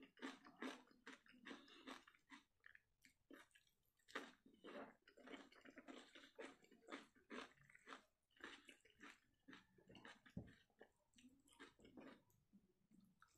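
A person chewing a mouthful of fish curry and rice: a steady run of chewing sounds, about two or three a second.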